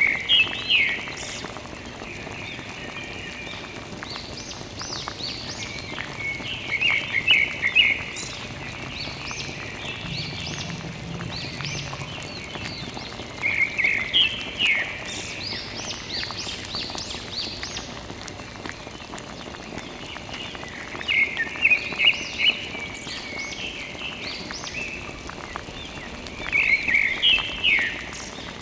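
A thin stream of water trickling from a plastic tube onto a toy tractor, a steady soft splashing. Over it a bird sings a short run of quick chirps five times, about every seven seconds.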